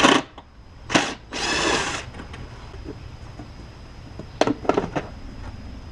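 Tool work on a car's engine bay: a sharp knock at the start and another about a second in, then a small power tool whirring for under a second, and a few quick clicks near the end.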